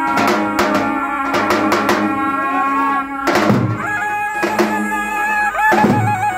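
Two lodra, large Albanian double-headed bass drums, beaten with mallets in a heavy uneven rhythm, under a zurna (curle) playing a melody of long held notes with a quick wavering trill about five to six seconds in.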